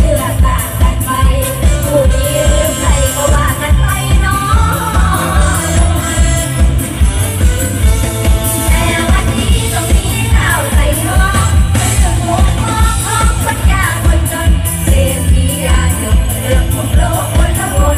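Live band music played loud over a PA, with singers and a heavy, steady kick-drum beat, recorded from the crowd.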